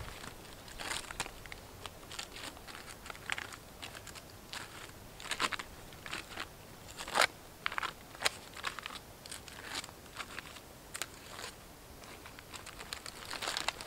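Dry bark being torn and peeled by hand from a dead birch trunk: irregular crackling and crinkling tears, with one louder tear about halfway through.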